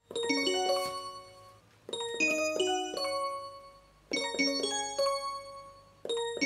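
Outro music: short melodic phrases of pitched notes, a new phrase starting about every two seconds and each fading away.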